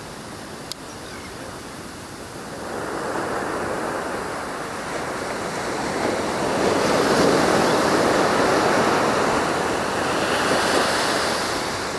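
Ocean surf washing onto a beach, growing louder a few seconds in and loudest past the middle as a wave breaks. A brief click less than a second in.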